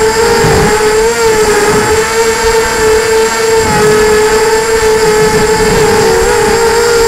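An FPV drone's electric motors and propellers whining steadily in onboard camera audio, the pitch wavering slightly with throttle, over low wind rumble on the microphone.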